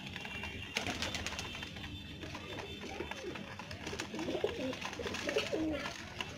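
Domestic pigeons cooing: a run of low, wavering coos through the second half, from a male bowing to a hen in courtship. A brief rustling noise comes about a second in.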